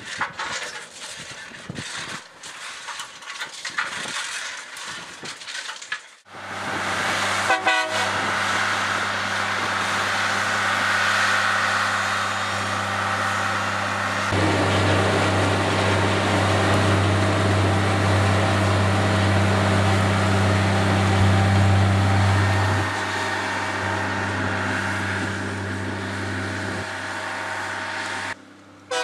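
Loram shoulder ballast cleaner running: about six seconds of uneven clattering and knocks, then a loud, steady machine noise with a constant low drone that starts suddenly, grows louder partway through and drops away near the end.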